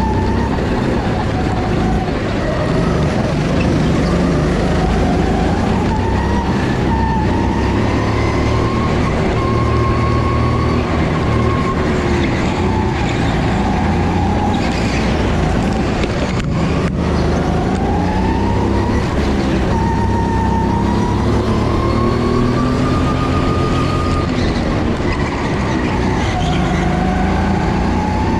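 Go-kart engine running hard, its pitch rising and falling again and again as the kart accelerates on straights and slows for corners.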